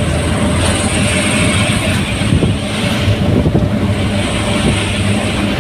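Daihatsu Gran Max pickup driving on the road: a steady engine drone with tyre and road noise.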